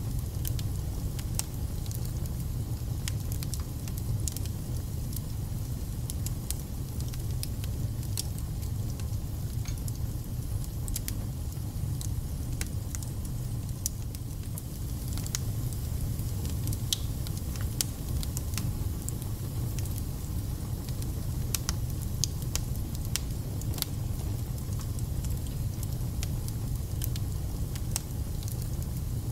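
Wood fire burning in a fireplace: a steady low rumble with frequent irregular crackles and spits from the burning logs.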